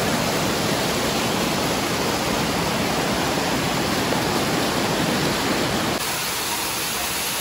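Steady rushing water, a continuous even noise that turns a little thinner about six seconds in.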